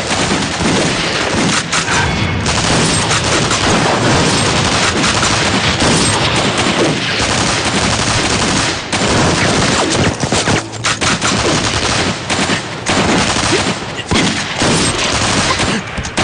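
Gunfight gunfire: many rifles firing at once, the shots overlapping almost without a break, thinning briefly a few times in the second half.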